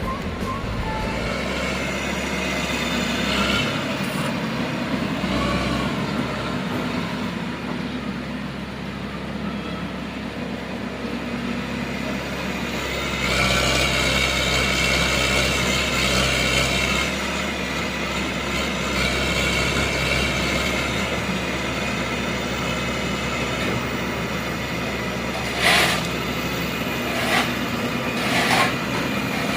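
Komatsu excavator running and working, its engine drone rising louder and higher for a few seconds midway, with three sharp knocks near the end.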